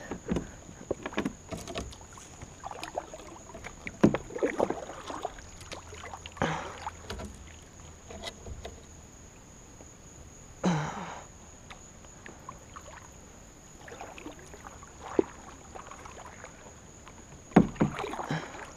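Kayak being paddled: the paddle splashes in the water, with scattered knocks and clatter against the plastic hull. A louder splash comes about ten seconds in and a sharp knock near the end.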